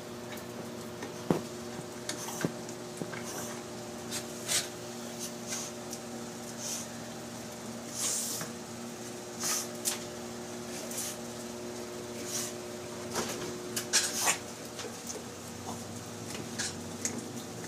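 Yorkshire terrier gnawing a porterhouse steak bone: irregular clicks and crunches of teeth on bone, over a steady background hum.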